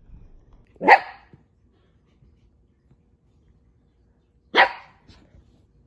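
Toy poodle barking: two single barks about four seconds apart.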